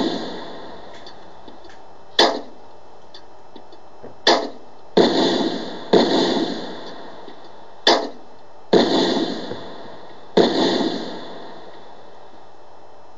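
A series of about seven shell explosions, each a sudden blast that dies away over about a second, coming irregularly over the first ten seconds, with a steady hiss between them.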